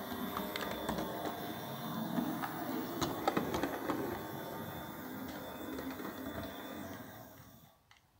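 O gauge model Class 08 diesel shunter running slowly on the track: its small electric motor whirring, with wheels clicking over rail joints and pointwork. The sound falls away about seven and a half seconds in.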